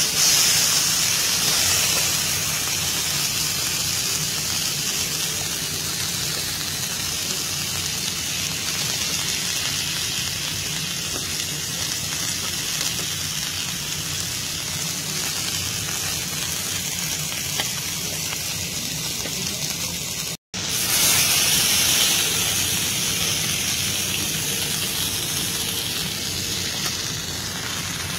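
Beef steaks sizzling steadily on a hot teppanyaki griddle, with a brief total dropout in the sound about three-quarters of the way through.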